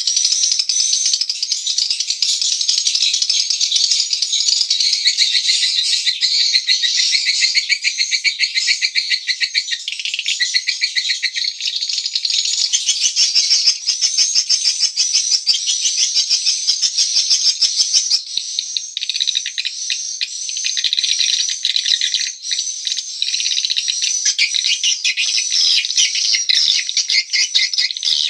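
Dense, continuous high twittering of edible-nest swiftlets, many rapid chirps overlapping without a break.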